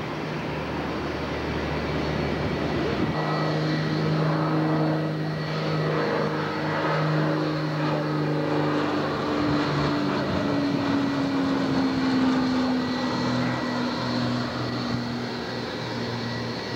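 A jet airliner rumbles on a distant runway for the first few seconds. Then a twin-engine propeller plane is heard on landing approach, its steady engine drone sliding slowly lower in pitch as it passes overhead.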